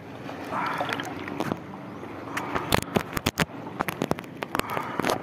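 Water sloshing and splashing at the shore, with a quick irregular run of sharp clicks and knocks through the second half.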